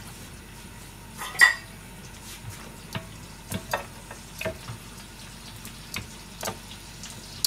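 Oil sizzling gently in a frying pan, with scattered light clinks and taps of kitchen utensils, the loudest clink about a second and a half in.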